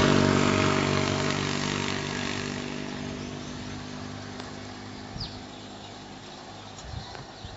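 A motor vehicle's engine passing close by on the road and fading away as it drives off. A few short bird chirps come in the second half.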